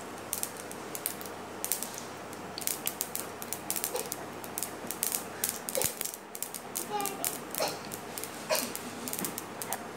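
Mustard seeds popping and spluttering in hot oil: a run of irregular sharp crackles, the sign that the oil is hot enough and the seeds are tempering.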